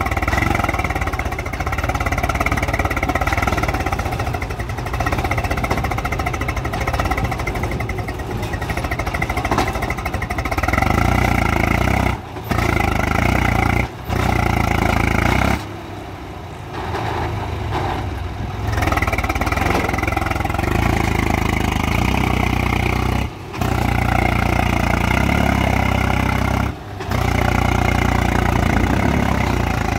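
Swaraj 735 XT tractor's three-cylinder diesel engine running steadily under load as the stuck tractor sits in sand. The sound breaks off for a moment several times and is quieter for a couple of seconds in the middle.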